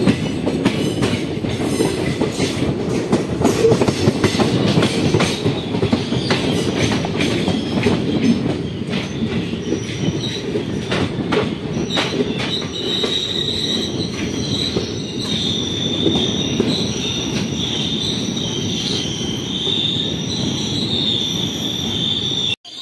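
Passenger train running, heard from aboard: a steady rumble with wheels clicking over rail joints. From about halfway a high, steady squeal joins in as the train slows into the station.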